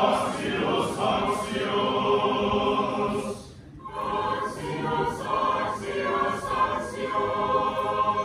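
Church choir singing unaccompanied Orthodox liturgical chant: two long, held phrases with a short break about three and a half seconds in.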